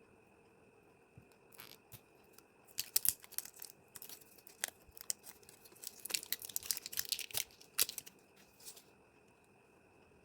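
Packaging being torn open and crinkled by hand: a run of crackling and ripping that starts a couple of seconds in and stops about two seconds before the end.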